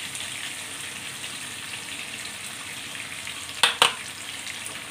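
Sliced onions sizzling and crackling in hot oil in a non-stick kadhai. Two sharp knocks come close together near the end.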